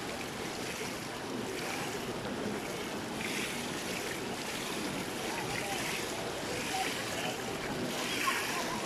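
Steady rushing wash of a swimming pool's water moving and lapping, with faint distant voices of other bathers now and then.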